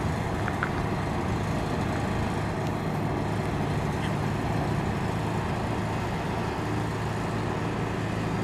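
Steady low hum of idling vehicle engines, with no change in level throughout.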